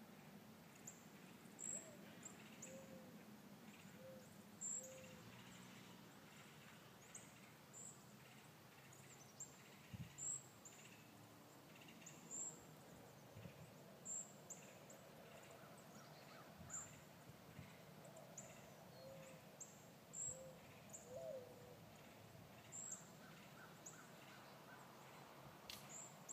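Faint birdsong: a thin, high chirp repeated about every two seconds, with a few soft, low calls in between.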